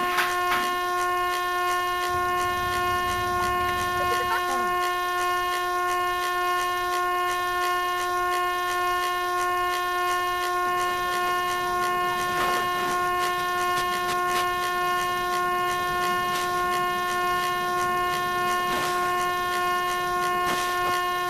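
A single horn-like tone held at one unchanging pitch without a break, with a few faint sliding chirps underneath.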